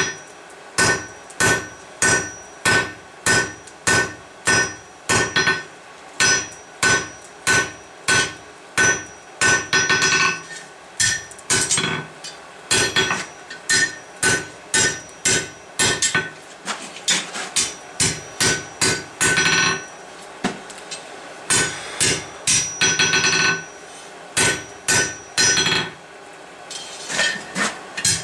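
Blacksmith's hammer striking hot steel on an anvil while drawing out a bar, at about two blows a second, each blow ringing from the anvil. A few quick runs of lighter, faster taps break the rhythm now and then.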